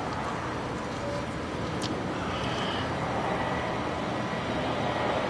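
Steady low mechanical rumble, with a faint click a little under two seconds in.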